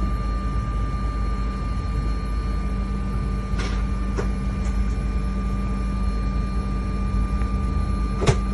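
Steady engine drone of airport apron machinery, with a constant high whine over a low rumble. A couple of sharp clicks come about halfway through, and a louder one near the end.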